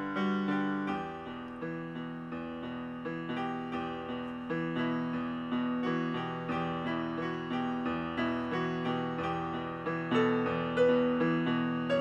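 Solo piano music: notes struck about twice a second in an even, unhurried rhythm, each ringing and fading.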